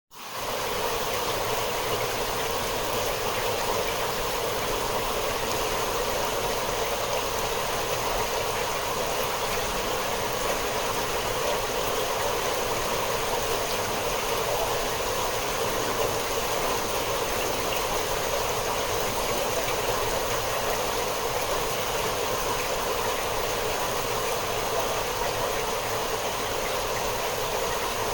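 Steady constant rain: an even, unbroken hiss of falling drops that comes in suddenly at the start and holds at one level throughout.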